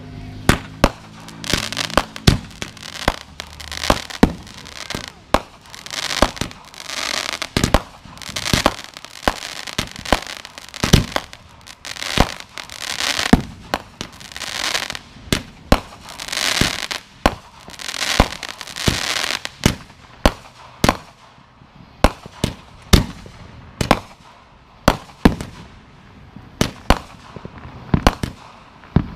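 Aerial fireworks going off: a fast, irregular run of sharp bangs from shells launching and bursting, with spells of hissing crackle between them. Later the hiss drops away and single bangs come about a second apart.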